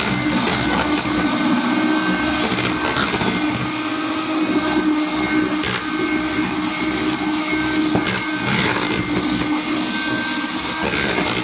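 Electric hand mixer running steadily at a constant speed, its beaters whisking beaten egg whites as the egg yolks are mixed in.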